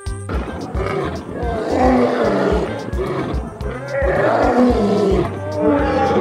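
Male lions roaring, a series of deep drawn-out roars one after another, over background music with a steady beat.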